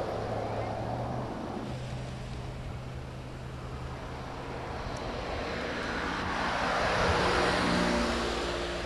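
A motor vehicle passing by on the road: its engine and tyre noise swell to a peak about seven seconds in, then fade, over a steady low hum.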